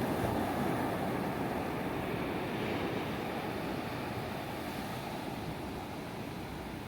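Ocean surf breaking and washing on a beach, a steady rush of noise that swells near the start and slowly eases off.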